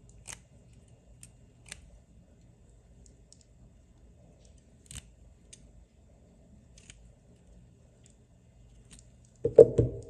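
Faint, scattered small ticks and clicks of scissor blades and thin copper wires being handled while CAT6 conductors are straightened, then a louder knock near the end.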